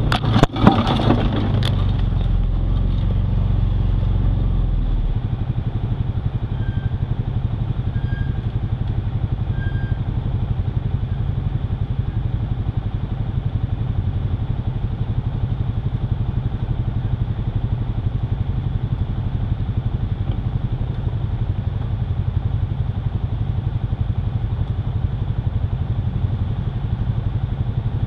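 A brief clatter of knocks just after the start, then an ATV engine running steadily at low revs with an even low flutter.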